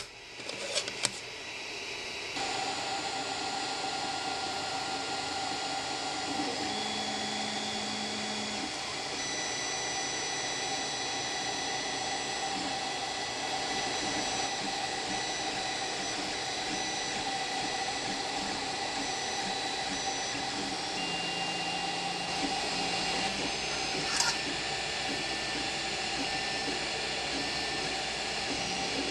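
A Creality CR-10 3D printer at work: the fans give a steady hiss, and the stepper motors make several steady whining tones that shift in pitch now and then. A few light clicks of plastic on the glass bed come in the first second or two, and there is one short tick near the end.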